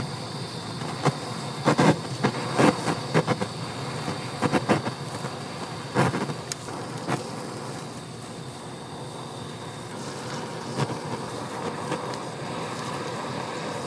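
Kitchen utensils clattering and tapping during souffle pancake preparation: quick clusters of knocks over the first half, then only a few isolated taps, over a steady kitchen hum.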